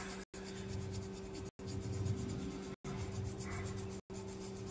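Colored pencil scratching back and forth on paper in short strokes as a drawing is coloured in, over a steady low electrical hum. The sound cuts out briefly about every second and a quarter.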